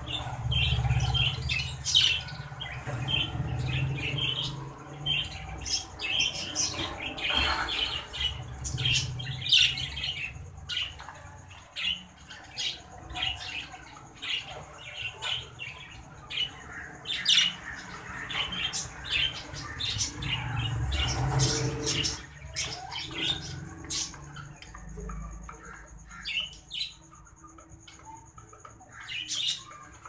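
Caged exhibition budgerigars chattering and squawking in quick, dense bursts of chirps. The chatter is busiest in the first half, thins out in the last few seconds, and has a low rumble under it at the start and again about two-thirds through.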